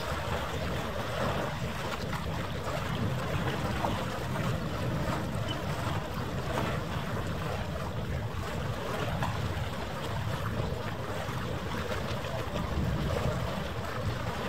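Steady harbour ambience: wind rumbling on the microphone over a constant wash of water, with no distinct events.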